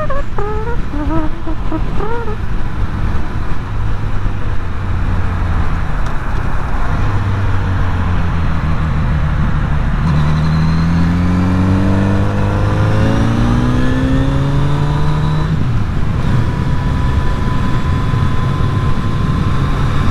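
Motorcycle engine running at road speed with steady wind noise, heard from the rider's seat. About halfway through, the engine pitch climbs steadily as the bike accelerates, then drops suddenly and settles to a steady cruise.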